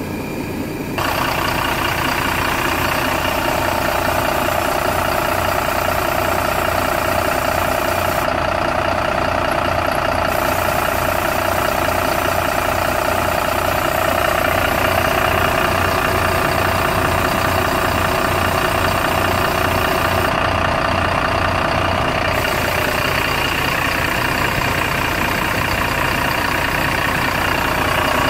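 Mercedes-Benz Citaro bus's OM906hLA 6.4-litre inline-six diesel engine idling steadily, heard close at the open engine bay. It turns louder and closer with a sudden step about a second in.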